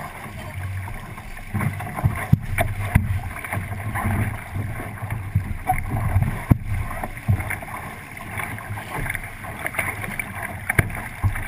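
Water rushing and splashing along the hull of a 29er sailing skiff under way, with wind buffeting the deck-mounted microphone. A few sharp knocks sound through it.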